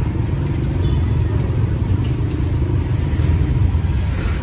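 Steady low rumble of road traffic, cars and motorbikes running by.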